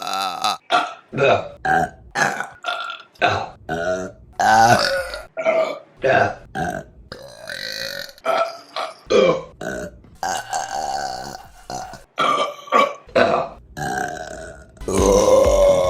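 A rapid string of women's burps, one clip after another: mostly short belches with a few longer drawn-out ones, varying in pitch from one to the next.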